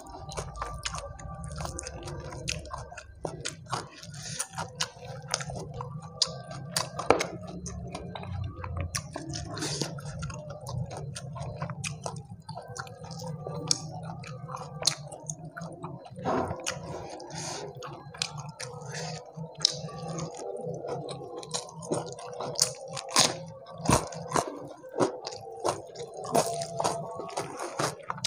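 Close-miked chewing and mouth sounds of a person eating fried chicken and rice by hand, with irregular wet smacks and crunches, over a steady low hum.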